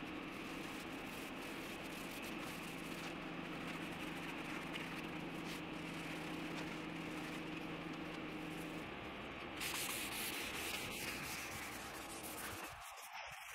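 A stain pad and then a rag rubbing over a solid-oak tabletop, spreading wood stain and wiping off the excess. This goes on over a steady hiss with a low hum underneath that stops about nine seconds in.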